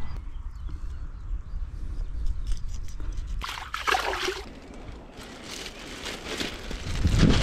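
Hands splashing and rinsing in shallow water for about a second, a little over three seconds in; the rest is faint rustling and handling noise.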